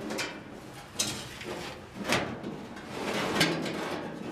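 Steel floor pan being handled and shifted into place: three sharp knocks about a second apart, the last the loudest, with scraping and rattling of sheet metal between them.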